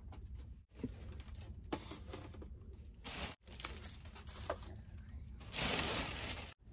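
Plastic takeout bag rustling and crinkling as food containers are unpacked onto a table, with a few light knocks; the loudest crinkling comes near the end.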